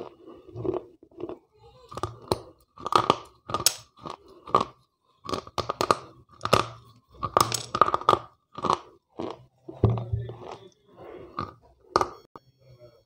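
Wet slate pencils being bitten and chewed close to a clip-on microphone: sharp crunches as pieces snap off between the teeth, with gritty chewing between them, in an irregular run of bites.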